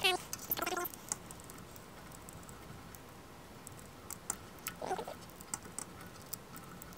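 Light, irregular metal clicks and taps of a screwdriver turning the screws on a claw machine's chrome claw cylinder base, thickest in the last few seconds.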